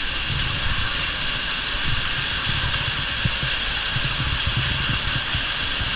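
Steady rushing hiss of water jets spraying up and splashing back down, with irregular low rumbles underneath.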